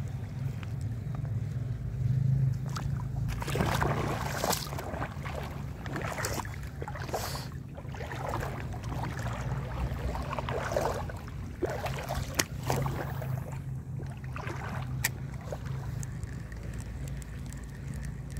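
Wind buffeting the microphone with a steady low rumble, over shallow seawater sloshing and splashing irregularly, and a few sharp clicks in the second half.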